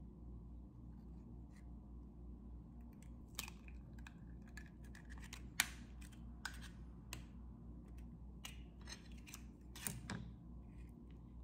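Eggs being cracked by hand and their shells pulled apart and set down: a scattered run of small sharp clicks and taps, the sharpest about five and a half seconds in.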